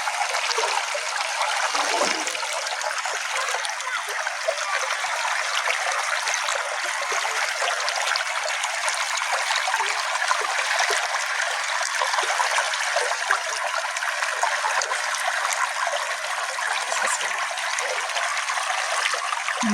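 Small brook flowing, a steady trickling rush of water.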